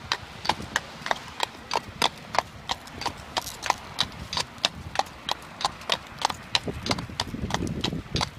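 A horse's hooves clip-clopping on hard pavement at a walk: a steady, even rhythm of sharp clicks, about three or four a second.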